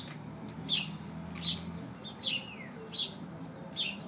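A small bird chirping over and over: short, high chirps that fall in pitch, a little more than one a second, keeping an even rhythm.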